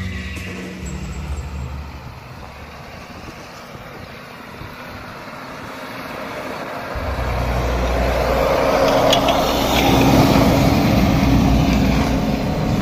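Toyota Land Cruiser's 4.7-litre V8 engine pulling the SUV up a snowy track, its tyres working through the snow; the engine and tyre noise come in suddenly and loud about seven seconds in.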